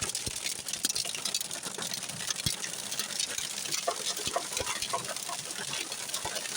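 Hailstorm: heavy rain with hailstones striking hard surfaces, a continuous hiss studded with rapid, irregular clicks and knocks.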